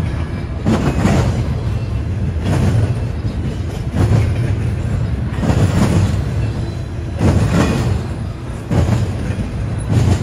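Double-stack intermodal freight train rolling past: a steady rumble of steel wheels on rail, swelling in a loud surge about every one and a half seconds as each set of wheels goes by.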